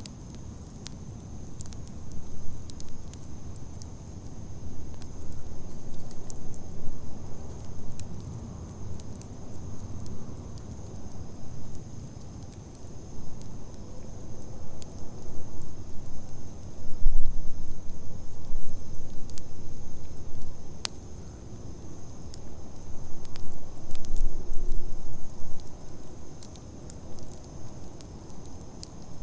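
Wood campfire burning: the flames rumble low in swells every few seconds, with scattered sharp crackles and pops from the burning wood. A steady high-pitched chirring of insects, likely crickets, runs underneath.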